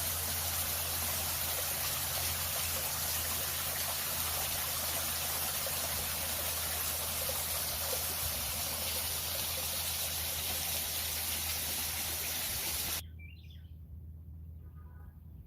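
Steady rushing of running water, which cuts off abruptly about thirteen seconds in. After it, a few faint bird chirps.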